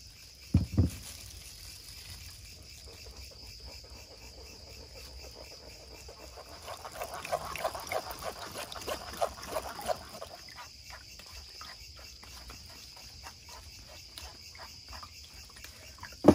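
Crickets chirping steadily. Blended fruit juice pours and trickles through a mesh strainer into a steel bowl, with two dull knocks about half a second in, then quick regular scraping strokes of a spoon working the pulp in the strainer.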